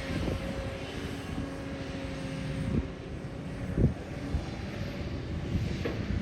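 Heavy diesel engine of an excavator at work, running with a steady drone, with three short knocks: one a little before halfway, one a second later, and one near the end.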